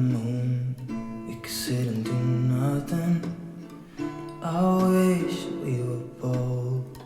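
Acoustic guitar strumming chords in a song, a pop ballad instrumental passage between sung lines.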